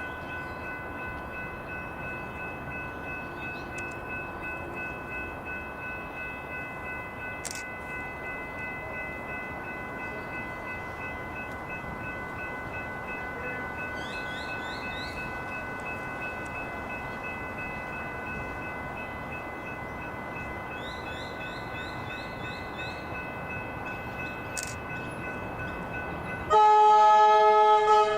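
Electric train running, a steady rumble with a constant whine of several held tones. Near the end a train horn sounds one loud blast of about a second and a half.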